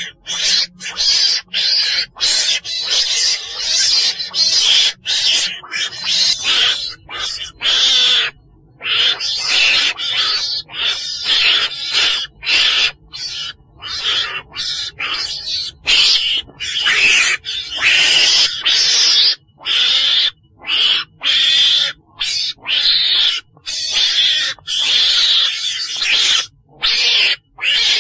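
Recorded calls of a chồn đèn, a small weasel-like Vietnamese carnivore: a fast, continuous run of shrill, raspy calls, each a fraction of a second to about a second long, with brief silences between. This is the call that trappers play back to lure the animal.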